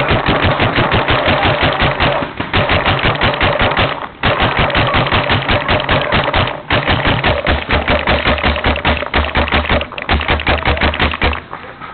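Tippmann A5 paintball marker firing long strings of rapid shots in several bursts, with short breaks about 2, 4, 6.5 and 10 seconds in.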